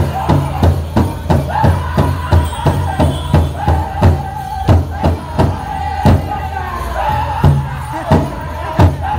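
Powwow drum group drumming and singing a chicken dance song: strong even drumbeats, quicker at first and then spaced further apart about halfway through, under high held sung lines.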